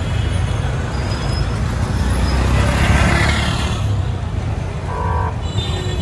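Busy street traffic of three-wheeler auto-rickshaws and motorcycles running past: a steady engine rumble, swelling as a vehicle passes two to four seconds in, with a short horn beep about five seconds in.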